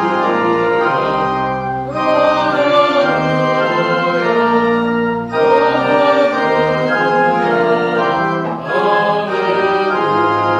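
Church organ playing a hymn in held chords, phrase by phrase, with a short break about every three seconds.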